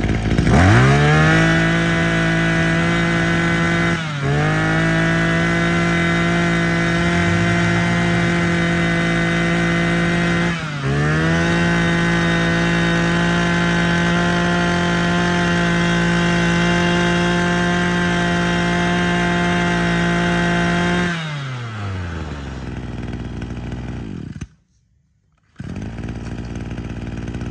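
Maruyama 26cc two-stroke brush cutter engine revved up to a high, steady full-throttle whine. The throttle is briefly let off and reopened twice, then the engine drops back to idle near the end.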